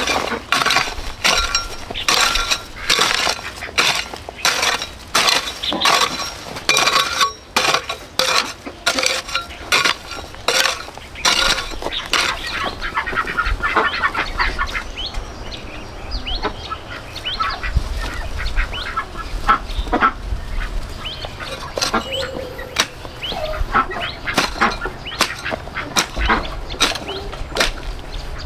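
Domestic fowl calling: a dense run of harsh, honking calls for about the first twelve seconds, then softer, scattered calls and chirps.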